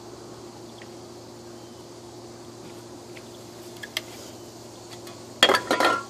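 A faint steady hum with a couple of light ticks. About five and a half seconds in, empty aluminium drink cans with their ends cut out start clinking and clattering against each other as they are handled.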